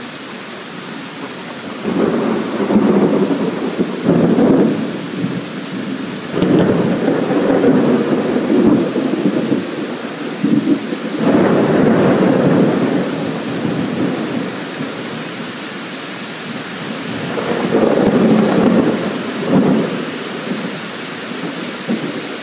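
Thunder rolling and rumbling in several long swells, each lasting a few seconds, over a steady hiss of rain.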